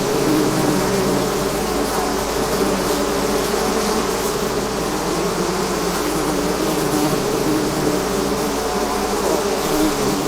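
A swarm of bees buzzing: a dense, steady drone of many wingbeats at several overlapping pitches.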